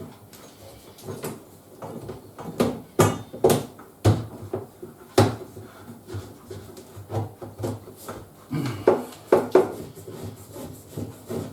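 Irregular knocks, clicks and rubbing of hand work on plumbing: pipe fittings and tools being handled and fitted to a water pipe.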